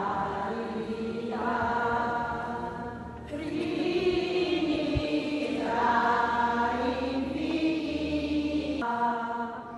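Liturgical chant sung during Mass, voices holding long, sustained notes in a few slow phrases.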